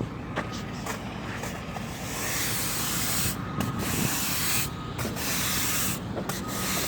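Stiff broom sweeping across asphalt, a scratchy swish in repeated strokes about a second long with short pauses between them, with a few light taps at first.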